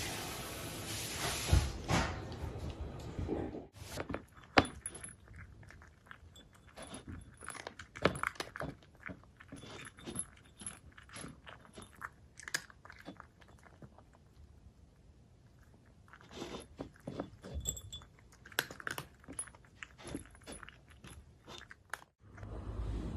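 A cat chewing, a string of irregular small crunches and clicks with a short lull partway through.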